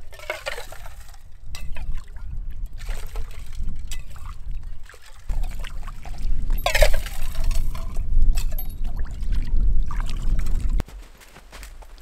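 Metal cup scooping water from a hole in pond ice and pouring it into another cup, in several splashing trickles over a steady low rumble. The rumble stops suddenly near the end.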